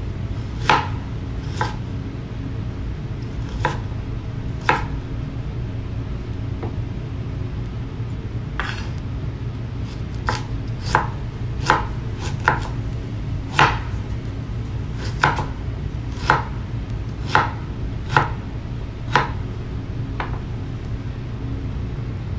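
Kitchen knife slicing ginger on a wooden cutting board: single sharp knocks of the blade meeting the board, a few spaced out at first, then about one a second from midway on, over a steady low hum.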